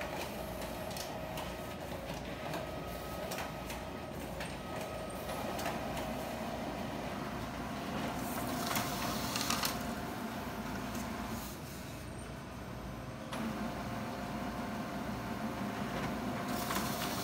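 Xerox WorkCentre 3655 laser copier running a copy job: the automatic document feeder drawing the two-sided original through to scan it, then the machine printing and feeding a copy out to the output tray. A steady mechanical whirr with a light hum, scattered clicks and a louder rush about halfway through.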